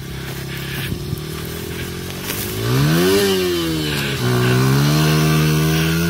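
Honda CRF dirt bike engine running, revved up and back down about three seconds in, then held at a higher, steady speed.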